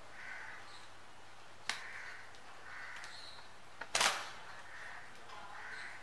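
Budgies chirping softly, short calls about once a second, with a sharp click a little under two seconds in and a louder brief scratchy burst about four seconds in.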